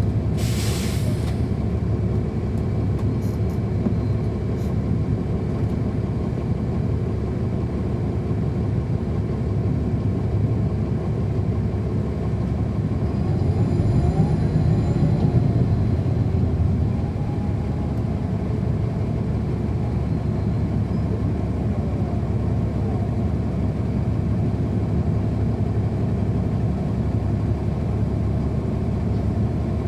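Inside a 2010 NABI 416.15 transit bus under way, its Cummins ISL9 diesel and ZF Ecomat automatic transmission giving a steady low rumble. A short hiss of air comes about half a second in. Between about 13 and 17 seconds the engine grows louder, with a whine that rises and falls.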